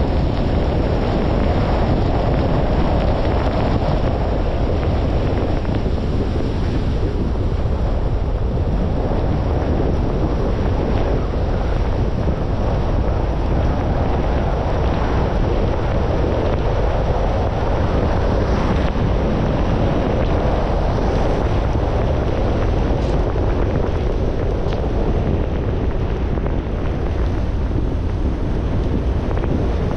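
Steady road noise from a car driving on a rain-soaked road: tyres hissing on wet asphalt, mixed with wind buffeting the microphone.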